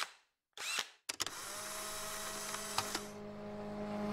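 Sound-design effects for an animated logo. The first second holds short bursts with rising sweeps in pitch; after that comes a steady electronic hum with hiss and a couple of sharp clicks.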